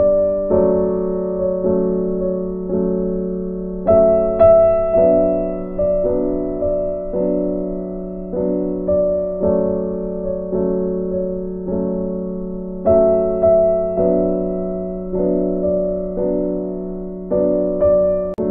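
Background music: a gentle piano melody with notes struck about once or twice a second, each fading before the next.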